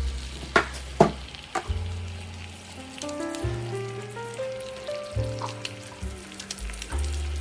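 An egg frying in oil in a pan, sizzling steadily, with a few sharp pops in the first two seconds.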